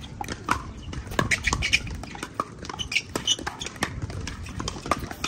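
Pickleball paddles hitting a hard plastic pickleball back and forth in a rally: an irregular string of sharp pops, a few a second.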